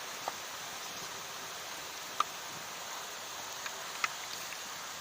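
Murukku deep-frying in hot oil: a steady sizzle with a few sharp pops, the loudest about two seconds in and about four seconds in.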